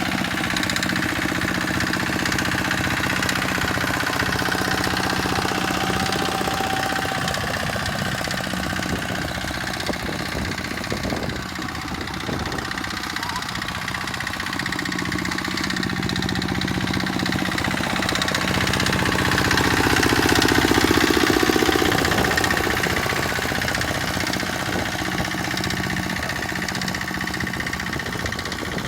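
Tractor engine running steadily, growing louder about twenty seconds in, then easing off again.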